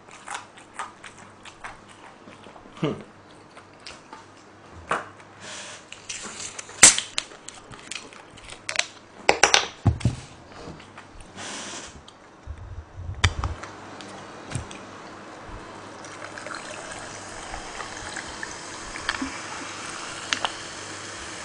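Coca-Cola poured from a plastic bottle into a cup near the microphone: a steady pouring sound that begins about two-thirds of the way in and keeps going. Before it come scattered clicks and knocks as the bottle and tableware are handled.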